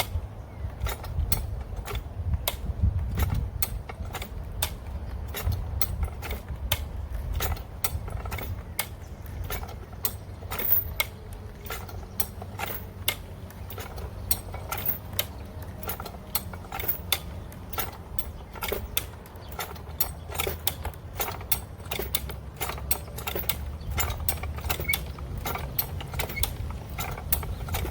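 Steel high-lift farm jack being pumped, its ratchet pawls clicking several times a second with some creaking as it climbs the bar under load, pulling a chained fence post out of the ground.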